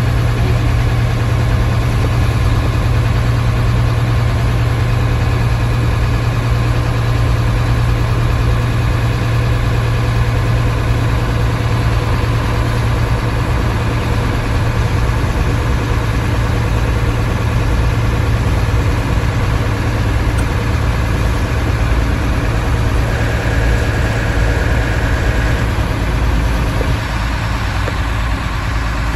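Old Hino bus's diesel engine running steadily with a loud, even low drone.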